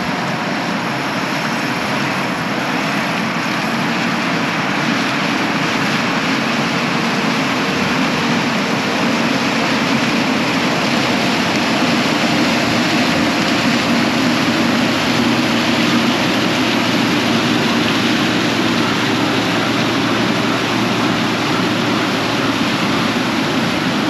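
John Deere combine harvesting field corn with its corn head: engine and threshing machinery running steadily at a loud, even level, a dense mechanical hum and rush.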